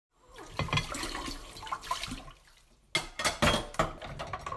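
Water splashing with irregular clinks and knocks; it dies down briefly about halfway through, then sharper knocks start again.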